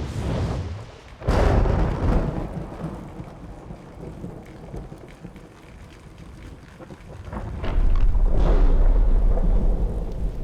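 Thunder-like booms and deep rolling rumbles: a sudden crack a little over a second in that rolls away, then a long, deep rumble that builds near the end.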